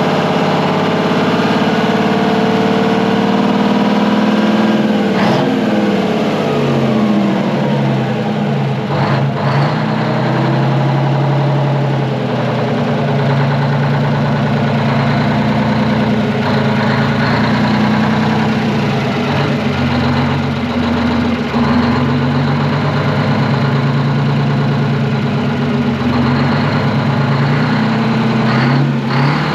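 Twin-turbo Detroit Diesel 12V71, a two-stroke V12 diesel, running loud and steady on the generator set, its engine speed dipping and recovering about five seconds in and shifting again a few times. It runs without the fan clattering against the shroud.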